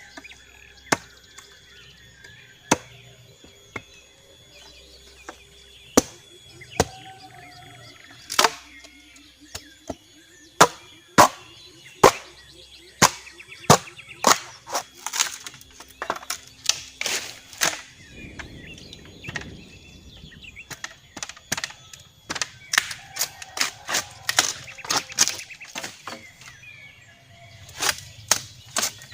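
Repeated sharp chopping strikes on wood at an irregular pace, coming fastest in the middle and near the end, with a brief rustle of brush partway through.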